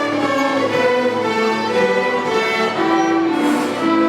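Orchestral music: bowed strings playing slow, held notes in chords that change about every second.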